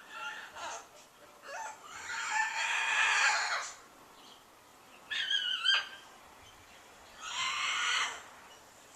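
A large pet bird crying in a series of harsh calls, about five in all, the longest and loudest about two seconds in.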